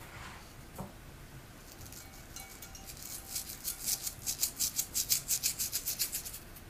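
A pinch of salt being rubbed between the fingers and sprinkled into a saucepan of water: a quick run of dry, crackly ticks, several a second, starting about three seconds in and stopping shortly before the end.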